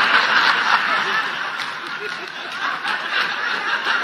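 Many people laughing together: a dense mass of overlapping laughter, loudest in the first second and then easing slightly.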